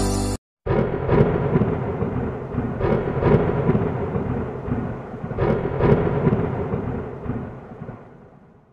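Thunderstorm: thunder with several sharp cracks over a steady hiss of rain, fading away over the last few seconds. In the first half-second the tail of electronic music cuts off.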